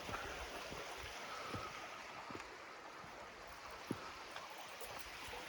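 Creek water running steadily, with a few faint knocks scattered through.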